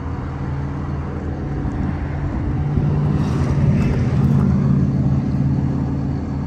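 A vehicle engine idling steadily, growing louder for a few seconds in the middle.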